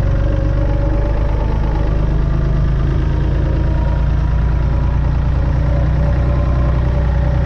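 Massey Ferguson 135 tractor's diesel engine running at a steady speed while the tractor is driven, heard from the driver's seat.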